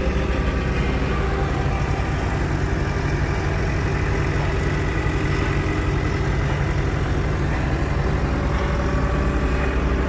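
Tractor diesel engine running steadily at an even, unchanging speed, a constant low hum.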